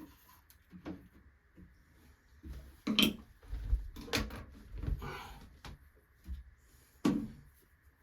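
Wood chisel working out the recess for a door's striker plate: a few sharp knocks into the wood with scraping between them.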